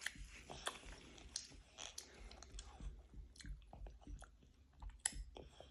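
Faint, wet chewing of mandarin orange segments: irregular small smacks and clicks of a mouth working on juicy fruit.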